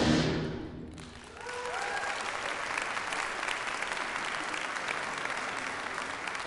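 The final held chord of a brass-and-timpani fanfare, played by a concert band, is released and dies away in the hall's reverberation. About a second in, audience applause starts, with a brief rising cheer, and carries on steadily.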